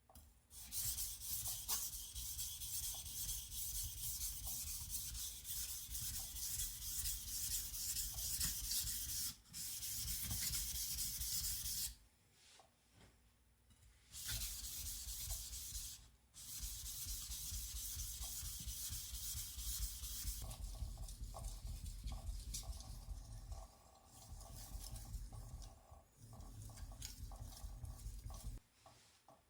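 Kitchen knife blade being sharpened on a whetstone: steady back-and-forth grinding strokes, stopping for a few short pauses.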